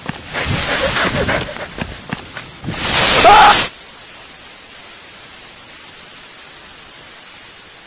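Rough, jostling handling noise from a handheld camera carried on the run, then a very loud, distorted burst about three seconds in that cuts off abruptly. After it, a steady, even hiss of microphone static while the camera lies still on the ground.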